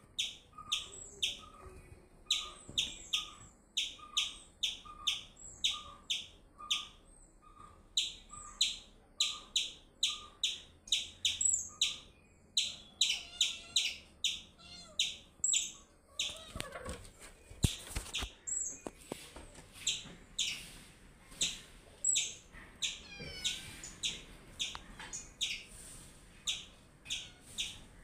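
Small birds chirping in a fast, regular series of short high chirps, about two a second, with a brief knock of handling noise a little past halfway.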